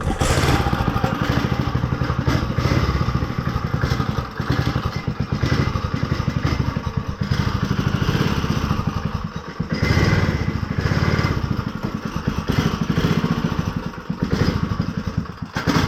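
Go-kart's small engine running hard as the kart is driven, its revs rising and falling with the throttle.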